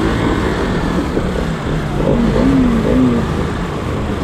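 Motorcycle engine running and revving while the bike is stuck in mud and water.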